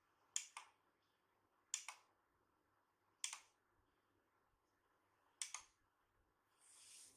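Gaming mouse buttons clicked four times, each a quick double click like a press and release, a second or two apart. A short soft rustle comes near the end.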